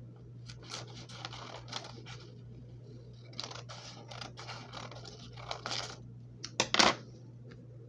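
Scissors cutting through folded paper, two runs of crisp snips with a pause between, and a sharper knock near the end.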